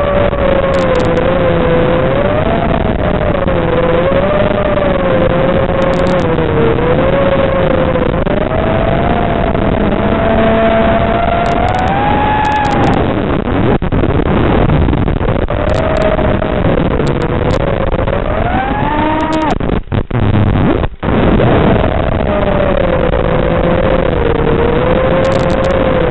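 Racing quadcopter's brushless motors whining over a constant hiss, the pitch wavering up and down with throttle. It climbs and falls away about halfway through, then sweeps sharply upward under a throttle punch and briefly cuts out twice.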